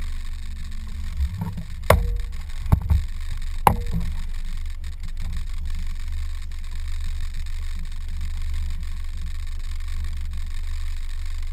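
Boat motor running with a steady low hum, with a few sharp knocks about two to four seconds in.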